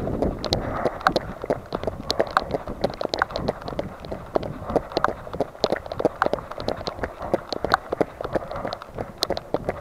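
Running footsteps on a wet pavement: a quick, uneven patter of footfalls and knocks over a light hiss of rain.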